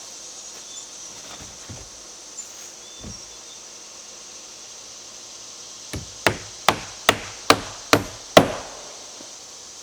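Hammer driving a nail into a wooden siding board: seven sharp blows in a quick, even run about 0.4 s apart, the last the hardest, starting about six seconds in.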